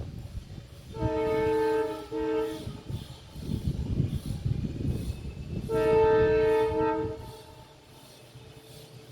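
WDP4D diesel locomotive's multi-tone horn sounding as the train departs: a blast of about a second, a very short break and a brief follow-on, then a second, longer blast a few seconds later. A low engine rumble runs between the blasts, and it falls quieter near the end.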